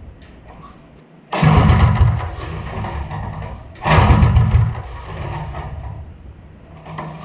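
Mini bike's 206cc flathead single-cylinder engine, running on methanol, rising in a sudden loud burst about a second in and again near four seconds, each time dropping back to a lower, steady idle.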